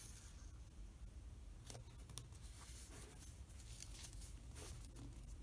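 Faint handling of washi tape on paper: fingers laying a strip of tape on a notebook page and pressing it flat, with a few soft ticks and rustles, two of them about two seconds in, over a low steady hum.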